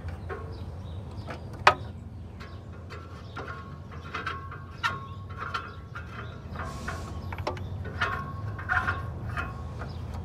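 Clicks, taps and light rattling of hands working an O2 sensor wiring connector and a hand tool in a car's engine bay, with one sharp click a little under two seconds in. A steady low rumble runs underneath.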